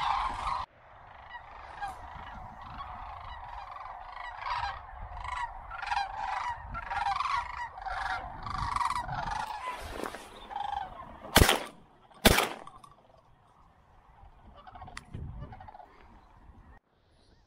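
A large flock of sandhill cranes calling overhead: a dense chorus that cuts off abruptly under a second in, then many separate calls. About eleven seconds in come two shotgun shots about a second apart, the loudest sounds. A few calls follow more faintly.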